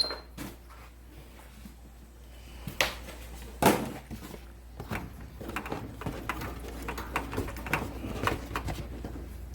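Work noises from tools and parts being handled: scattered knocks and clicks, with a sharp knock a little under three seconds in and the loudest near four seconds, then a run of smaller clicks, over a steady low hum.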